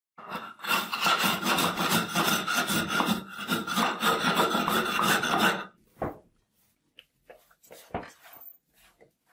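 Fast back-and-forth scrubbing by hand over a rusty steel surface strewn with rust grit, with dense gritty rubbing strokes for about five and a half seconds. After that come a few short, scattered scrapes and taps.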